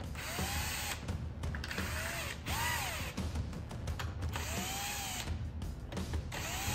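Cordless driver running down the leadframe bolts on a Ford 6R80 transmission valve body in short bursts about a second apart, the motor pitch rising and falling with each one. The bolts are only being snugged here, not yet torqued.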